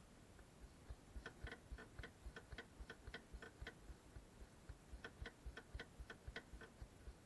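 Car turn-signal indicator ticking at an even pace of about four ticks a second, in two runs with a break of about a second between them.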